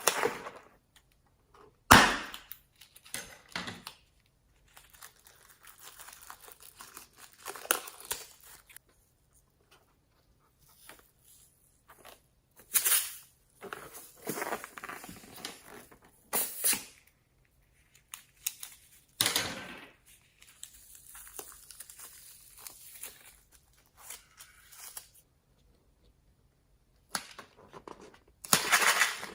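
Homemade slime being handled: sticky crackling and squishing, broken by about five sharp snaps or pops.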